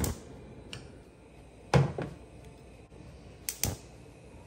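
A few sharp clicks from a Whirlpool gas cooktop as its burner knobs are turned to high, with a louder clunk about two seconds in and a quick pair of clicks near the end.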